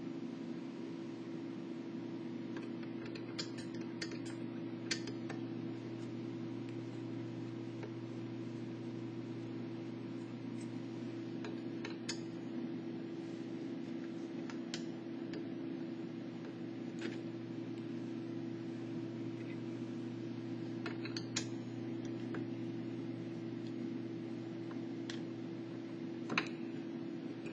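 Scattered light clicks and taps from a Phillips screwdriver working the screws out of the back of a PC case, over a steady low hum.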